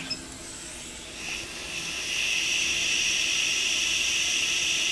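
Hot air rework station blowing: a steady airy hiss that dips briefly at the start, comes back about a second and a half in and then holds steady.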